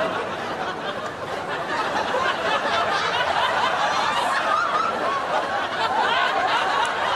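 A studio audience laughing and chuckling, many voices at once, with no break.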